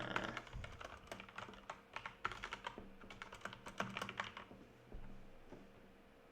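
Computer keyboard typing: quick runs of keystrokes for about four seconds, then a single soft thump, and the typing stops.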